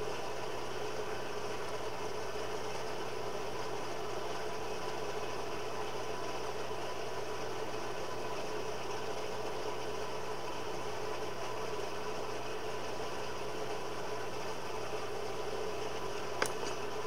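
Coal forge air blower running steadily, a constant hum with a faint whine. A single short click near the end.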